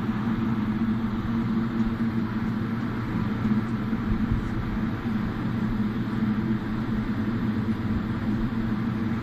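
Steady low mechanical hum with one constant tone, unchanging throughout; no gunshots.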